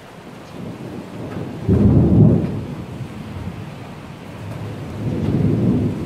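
Thunder rumbling over steady rain. A sudden deep rumble breaks out about two seconds in and fades, then a second, softer rumble swells near the end.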